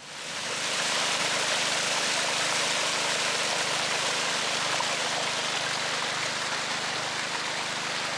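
Water gushing steadily from a pump's outlet pipe into a pond as the pond is refilled, with a faint steady hum underneath. The rush fades in over the first second.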